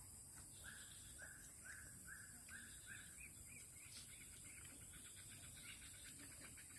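Near silence: quiet outdoor ambience with a faint animal call, short high chirping notes repeating two or three times a second, clearest over the first three seconds and then fading, over a steady high hiss.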